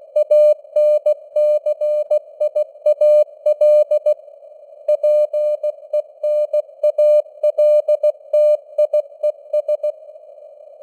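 Morse code (CW) at 16 words per minute: a single steady tone keyed on and off in dots and dashes over a narrow band of simulated radio hiss, its strength fading up and down slightly. The keying pauses briefly about four seconds in and stops again near the end, leaving only the hiss.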